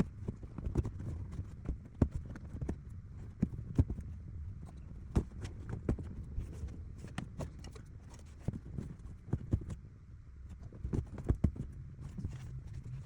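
Irregular clicks and knocks, often several a second, from hand work on a car's stripped interior carpet and trim, over a steady low rumble.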